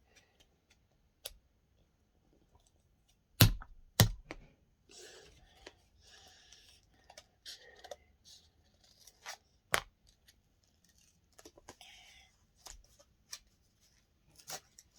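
Scissors cutting into plastic packaging, with crinkling and rustling of the wrapper between cuts. Three sharp, loud snips stand out, two close together at about three and a half and four seconds in and one near ten seconds.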